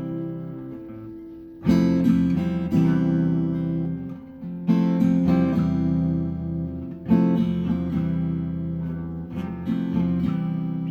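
Acoustic guitar strummed chords ringing out, changing back and forth between an easy (cheating) F and a C chord. The strongest strums come at about 2, 3, 5 and 7 seconds in, with lighter strums near the end.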